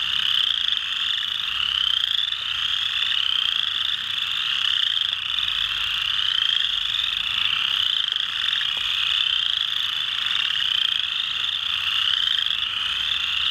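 Chorus frogs (Pseudacris) calling in a dense chorus. Rising trills repeat about once a second over a steady wash of many other frogs calling.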